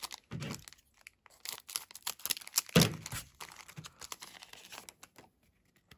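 Foil trading-card booster pack wrapper crinkling and being torn open: irregular crackles, loudest about three seconds in.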